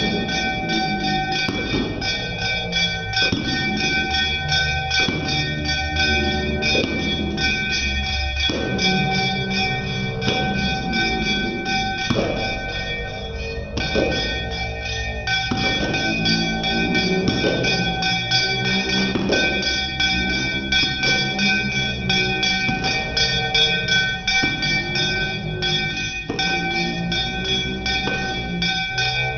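A puja hand bell rung without pause during aarti, a steady metallic ringing. Voices sing the aarti beneath it.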